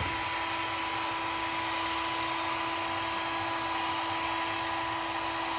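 Heat gun blowing steadily while softening plastic: a constant rush of air with a steady whine.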